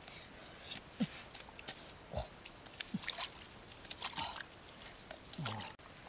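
Knife blade digging and scraping into a wet, muddy bank, with sharp clicks and squelches, and short low falling vocal sounds about once a second.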